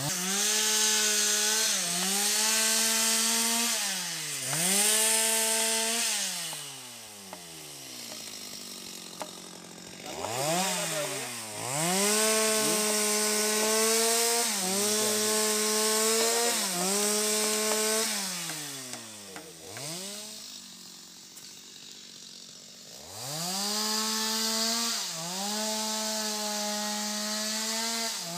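Stihl MS 250 two-stroke chainsaw cutting felled sengon logs into lengths: it runs at high revs, its pitch dropping and climbing back again and again, and twice falls back to idle for a few seconds before revving up again.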